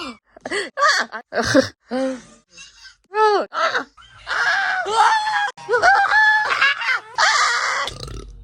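A person making weird nonsense noises with their voice: a string of short yelps and grunts that rise and fall in pitch, then longer, wavering drawn-out calls over the last four seconds or so.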